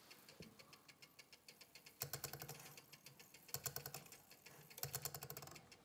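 Striking train of a Breguet carriage clock movement running on very little wind: faint, rapid mechanical clicking of the gear train, quickening into short spurts about two, three and a half and five seconds in.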